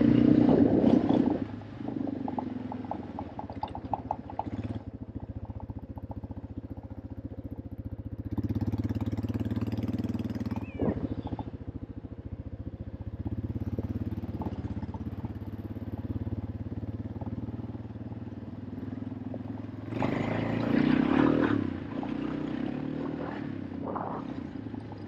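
An engine running steadily at idle, picking up briefly twice: about eight seconds in and again about twenty seconds in.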